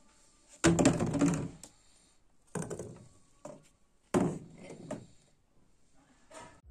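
Objects being set down on a wooden tabletop: three knocks about two seconds apart, the first the loudest, each with a short rattle after it, and a couple of fainter taps between.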